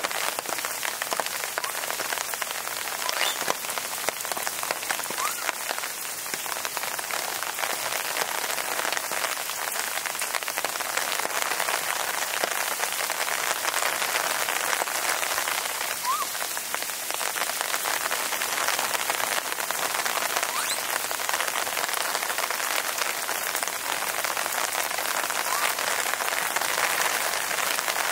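Steady rain falling, an even hiss made of countless fine drop taps.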